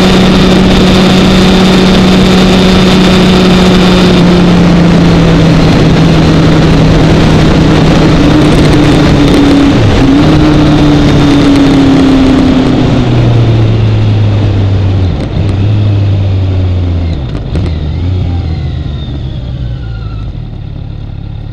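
Kawasaki Ninja 1000's inline-four engine and heavy wind noise at highway speed. From about halfway through, the engine note drops in several steps and the wind noise fades as the bike slows for a stop.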